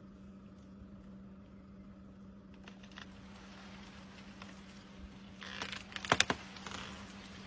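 An elephant shaking a tree: about five and a half seconds in, a rustle of moving branches with a quick run of three or four sharp cracks, over a steady low hum.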